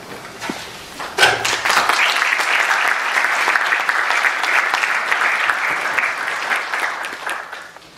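Audience applauding, starting about a second in, holding steady, and fading out near the end.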